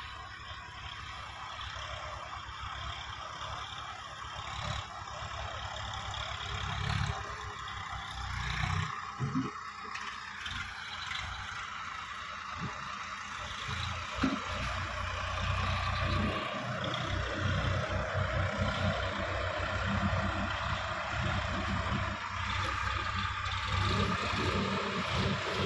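Tractor diesel engines running as the tractors drive through a flooded paddy field: a steady low rumble that grows louder from about the middle as one tractor comes closer.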